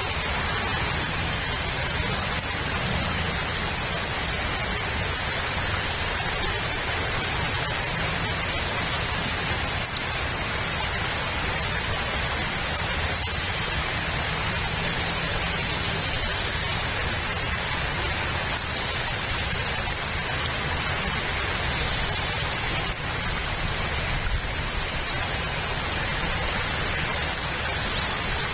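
Steady hiss of rain falling on and around an outdoor nest camera's microphone, with a few faint, short, high chirps.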